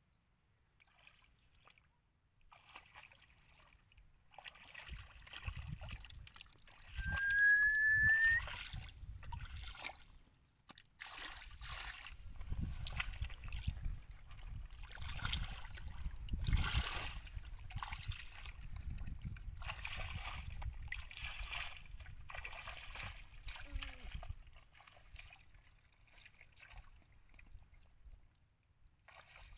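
Bare feet wading through shallow muddy water in grass, a run of irregular sloshing, splashing steps. About seven seconds in, a short rising whistle-like tone sounds once.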